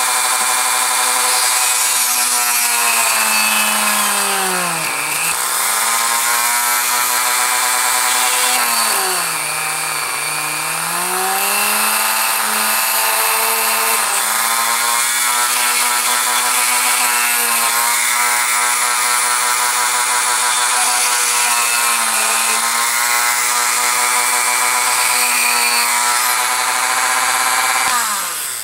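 Rotary tool with a flex-shaft handpiece running at speed, a steady whine, reaming out a screw hole in plastic. Its pitch sags and recovers twice, about five and ten seconds in, as the bit loads up, and near the end it winds down as it is switched off.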